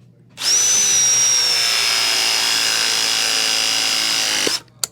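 Ridgid RP 340 battery press tool running one press cycle on a 2-inch Viega copper press fitting: a steady motor whine that starts about half a second in, holds for about four seconds and cuts off, followed by a sharp click.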